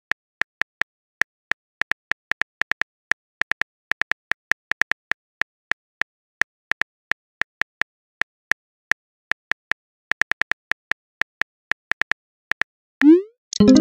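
Phone keyboard typing sound effect: irregular soft clicks, a few per second, one per letter as a text message is typed. About a second before the end comes a short rising whoosh, the message-sent sound, followed right at the end by a louder pitched tone.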